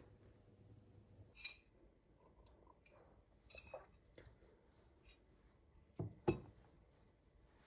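A few light clinks and knocks of a ceramic mug being handled, ending with two knocks close together about six seconds in as it is set down on a table.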